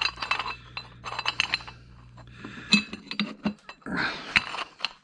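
Small metal brackets and bolts clinking together as they are handled and sorted, a string of sharp clinks with brief metallic ringing.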